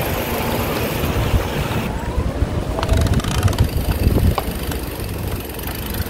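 Wind rumbling unevenly on the microphone over general street noise while a mountain bike rides through town streets.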